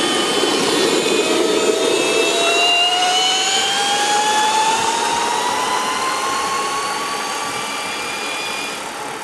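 Cordless drill motor driving a homemade electric skateboard, whining and climbing slowly in pitch as the board speeds up, over a rush of wheel and wind noise. The whine fades a little near the end.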